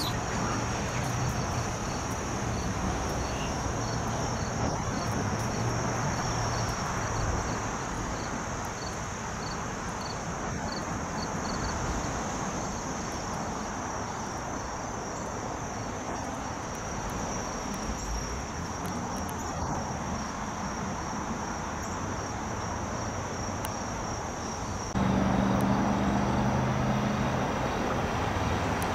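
Insects trilling steadily at a high pitch, with a separate chirp repeating about twice a second for the first ten seconds or so, over a low hum of distant traffic. About 25 seconds in the sound jumps louder as a Metro-North M7A electric multiple-unit train approaches, a low steady hum with a few held tones.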